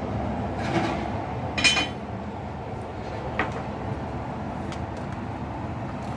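A few short clinks of a pot, lid or dish being handled, about one and two seconds in and again a little later, over a steady low background rumble.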